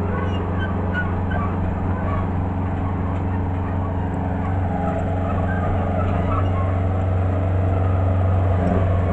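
Engine of a house cat crawler mover running steadily under load as it walks a modular home section up a driveway, growing a little louder in the last few seconds.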